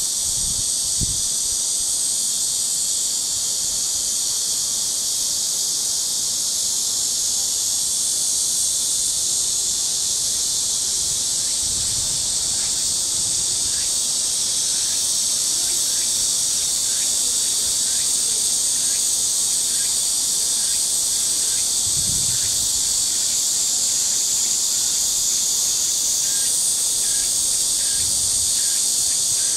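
Dense, steady high-pitched chorus of summer cicadas. Faint regular chirps join in during the second half, and brief low rumbles come a few times.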